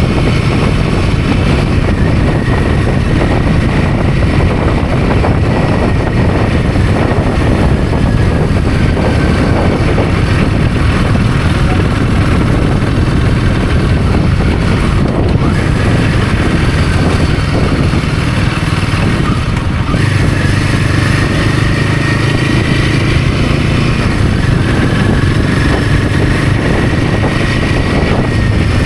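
Royal Enfield Himalayan 450's single-cylinder engine running steadily at a cruise while riding, under a haze of wind and road noise. A thin high whine drifts slightly up and down in pitch.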